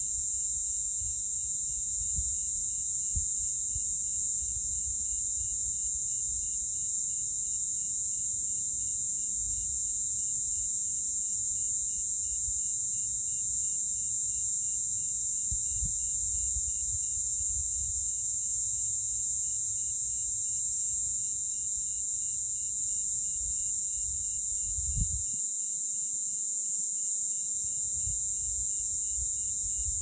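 Cicadas buzzing in a continuous, steady, high-pitched chorus, with a fainter pulsing trill beneath it.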